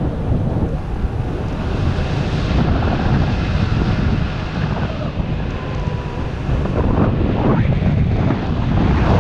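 Airflow buffeting an action camera's microphone during a paraglider flight: a loud, steady low rumble of wind, with a couple of faint short rising tones about seven seconds in.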